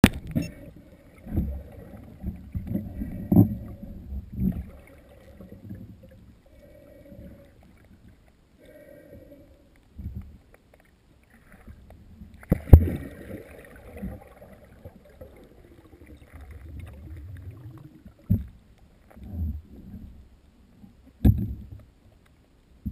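Muffled underwater sound picked up by a camera mounted on a speargun: irregular low knocks and water movement as the diver moves over the seabed. A sharp click about halfway through is the loudest sound, with a few more knocks near the end.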